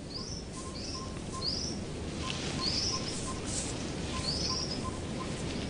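Forest ambience: a bird repeating short, high, rising chirps every half second to a second, with a fainter rapid pipping and a steady low rush of background noise.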